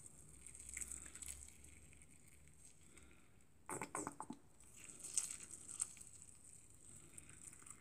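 Water poured from a small watering can into plastic cups of dry potting soil: faint soft trickling and patter as it soaks in, with a brief cluster of light knocks about four seconds in.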